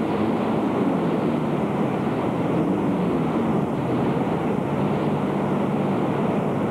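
Mountain stream in flash flood: muddy floodwater rushing fast through a narrow stone-walled channel, a steady loud rush without a break.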